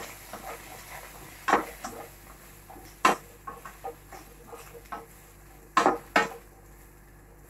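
Wooden spatula stirring vegetables in a frying pan, scraping and knocking against the pan. Sharp clatters come about a second and a half in, about three seconds in, and twice near six seconds.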